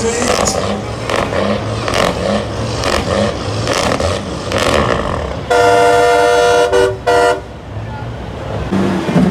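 Semi-truck air horn sounding about halfway through: one long blast of a few seconds, then two short ones, a loud chord of several tones, over a crowd's voices.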